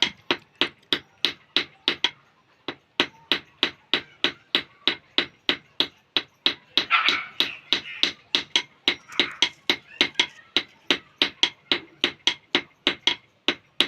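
A hammer striking a sickle's metal blade in a steady rhythm of about three blows a second, pausing briefly about two seconds in before carrying on.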